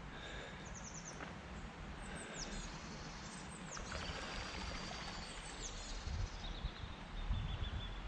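Steady rush of floodwater in a swollen, high-running stream, with small birds chirping and trilling repeatedly over it.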